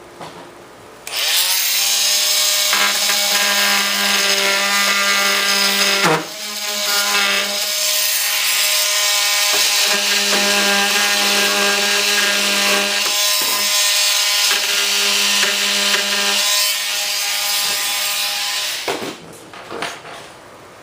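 A small electric power tool spins up about a second in and cuts with a steady whine and a gritty hiss. It dips briefly near six seconds, then winds down near the end.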